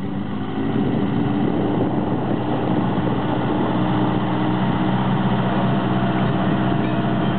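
Portable fire pump's engine running at a steady speed, a constant even hum with no change in pitch.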